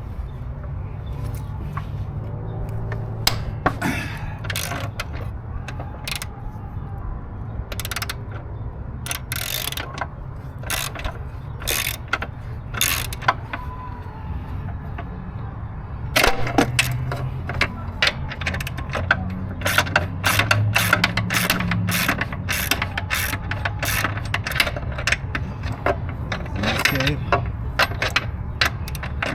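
Socket ratchet wrench clicking in irregular runs as a mower's engine-mounting bolt is turned, the clicks coming thicker in the second half, over a steady low hum.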